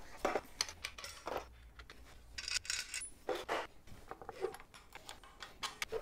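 A series of light metallic clanks, knocks and rattles as a folding bike work stand is set down and its legs opened. The stand is a wooden beam on orange metal legs.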